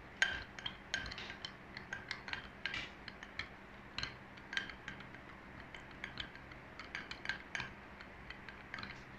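Metal spoon stirring ground sago powder into water in a glass bowl, clinking lightly and irregularly against the glass a few times a second.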